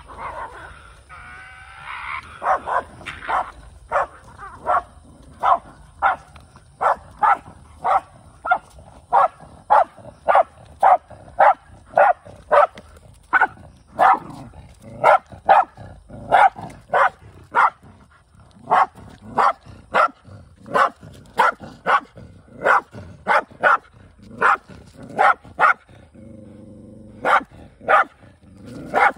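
A dog barking over and over, about two barks a second, with a brief pause about two-thirds through and a low growl near the end. It barks at another dog that is holding a freshly caught small animal, and there is some whining at the start.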